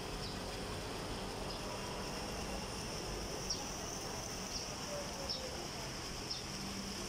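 A steady high-pitched insect buzz, broken by short chirps about once a second, over a low outdoor rumble.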